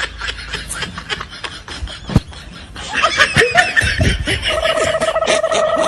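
High-pitched laughter, a quick run of repeated ha's. About four and a half seconds in, a steady held tone joins it.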